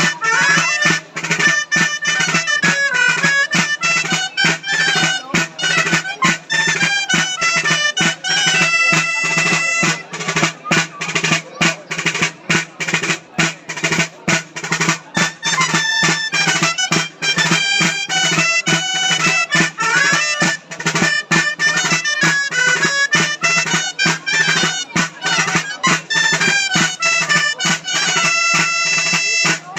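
Traditional Valencian ball de plaça dance tune played on loud, reedy folk wind instruments of the dolçaina kind, over a small drum beating steadily.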